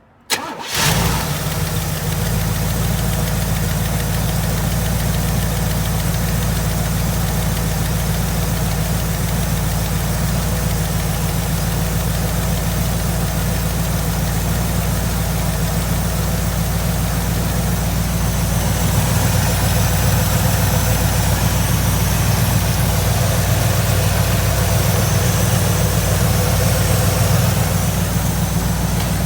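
1982 Pontiac Trans Am's Chevy 305 V8 starting and then idling steadily, a little louder from about two-thirds through. The engine has gone about two years without an oil change.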